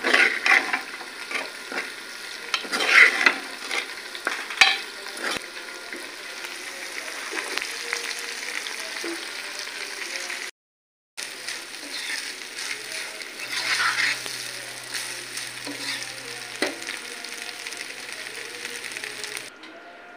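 Rice sizzling as it fries in oil in a pressure cooker pot, with a metal spoon scraping and knocking against the pot as it is stirred; the scraping is loudest in the first five seconds. The sound drops out for a moment about halfway, then the sizzling goes on.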